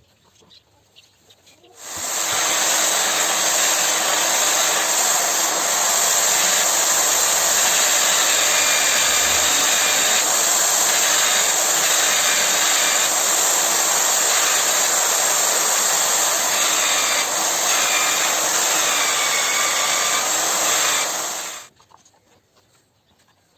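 A high-speed electric motor switched on, running at a steady pitch for about twenty seconds with a hissing rush and a faint whistle, then switched off.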